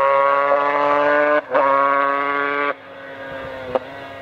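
A 500cc two-stroke Grand Prix racing motorcycle's engine at high revs, with one short break in the note about a second and a half in. At close to three seconds the sound drops sharply and carries on much fainter and lower in pitch as the bike moves away.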